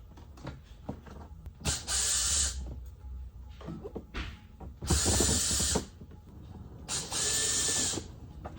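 Cordless drill-driver spinning in three short bursts of about a second each, backing out door trim screws.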